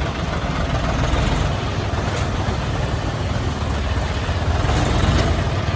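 Engine of a heavy machine (dump truck, excavator or tractor) running steadily with a low rumble.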